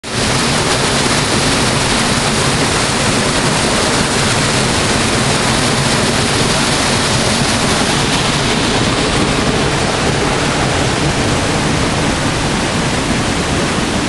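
Waterfall plunging onto rock into a churning pool: a loud, steady rush of falling water.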